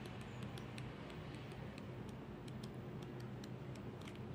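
Stiff sticker-book pages being handled and leafed through, giving quick, uneven little clicks and ticks of paper, several a second, over a low steady hum.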